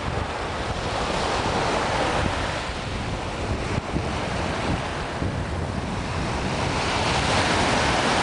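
Small Atlantic waves breaking and washing up a sandy beach, a steady surf hiss that swells about two seconds in and again near the end. Wind buffets the microphone with a low rumble.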